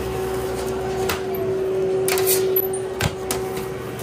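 Food-prep handling sounds at a sandwich counter: a few light clicks and a sharp knock about three seconds in, over a steady electrical hum.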